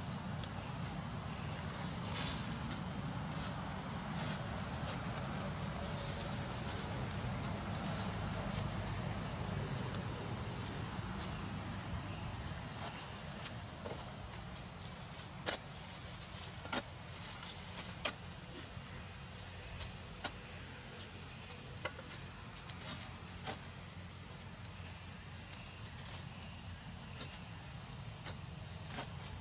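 A steady, high-pitched drone of insects, with a few short scrapes and knocks of a shovel blade digging into dry, stony soil.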